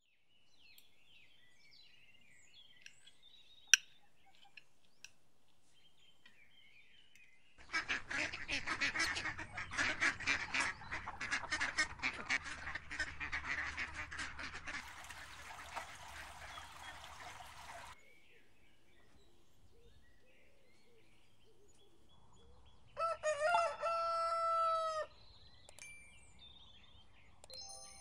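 Farmyard and pond birds. Faint birdsong with one sharp click about four seconds in, then a long stretch of mallard ducks quacking in a noisy, clamorous chorus, then a rooster crowing once a few seconds before the end.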